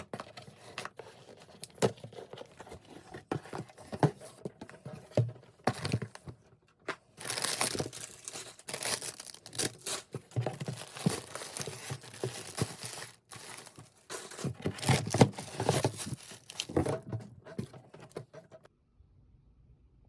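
Packaging being handled, crinkling and tearing in irregular rustles and crackles, stopping shortly before the end.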